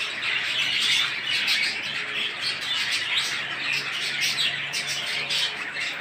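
A flock of young Euro line budgerigars chattering: many short, overlapping chirps and squawks, keeping up a continuous warble.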